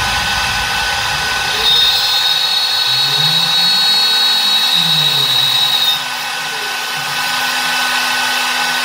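CNC router spindle milling an aluminium plate: a steady high-speed spindle whine with cutting noise, joined from about two to six seconds in by a high, thin squeal, alongside slow low tones that rise and fall as the head moves.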